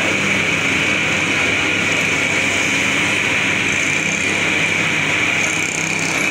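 Metal lathe running with its chuck spinning, a steady high whine over the noise of the motor and gearing.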